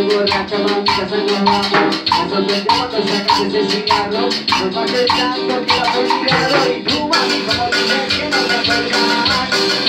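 Cumbia band playing live in rehearsal: electric bass and sustained low chords under a steady, evenly spaced percussion beat.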